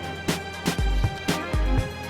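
Background music with a steady drum beat, deep kick drum and sharp snare hits about twice a second.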